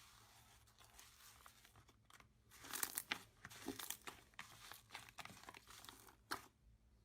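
Slime being squeezed and pressed by hand, giving faint, irregular crunches and crackles that grow denser and louder a couple of seconds in.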